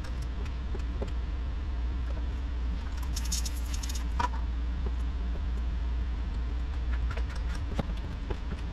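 Quiet hand-work sounds of laying wet paint protection film onto a car bumper: scattered light clicks and rubs over a steady low hum, with a brief hiss about three seconds in.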